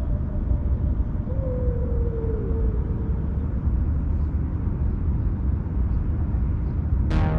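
Steady low rumble of wind buffeting the microphone, with a faint falling tone about a second in. Background music starts sharply near the end.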